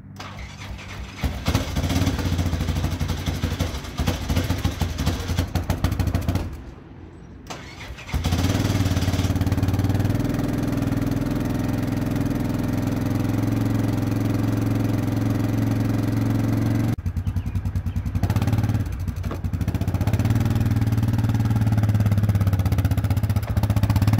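Old Yamaha Grizzly ATV engine starting from cold: it catches about a second in, runs a few seconds and dies, then fires again on the second try about eight seconds in and keeps running steadily. It is slow to start because it is about 22 years old and has not been run in a week.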